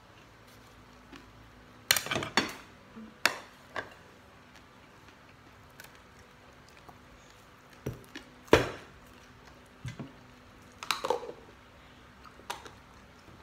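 Plates and cutlery clattering on a dining table: about nine sharp knocks and clinks scattered through, the loudest about two seconds in and past the middle.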